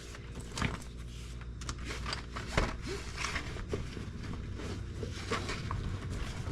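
Hand tools and a tool bag being handled: scattered clicks, knocks and rustling as tools are packed into the bag.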